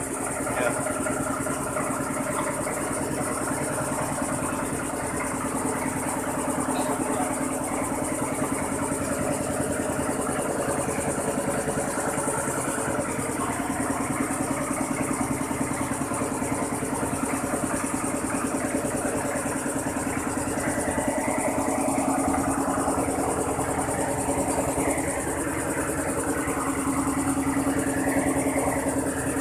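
Rice milling machine running steadily, a continuous engine-driven drone with a steady high hiss over it.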